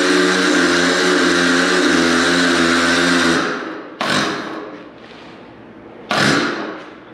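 Electric hoist of an overhead shop crane running steadily as it lifts, then stopping about three and a half seconds in. Two sudden knocks follow, each ringing and fading over about half a second.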